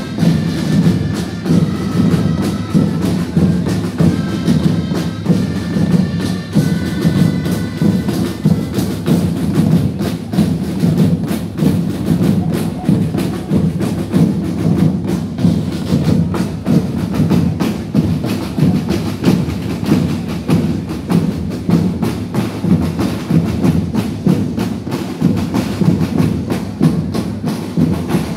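Live street-festival music with a drum beat and many rapid clicks of wood on wood. A high melody plays over the first several seconds, then the percussion goes on alone.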